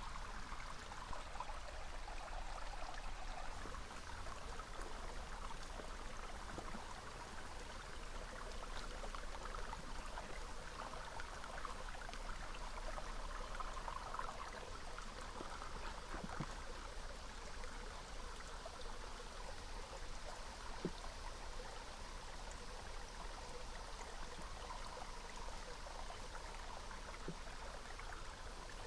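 A small stream flowing steadily over stones, an even rushing trickle with a few faint clicks.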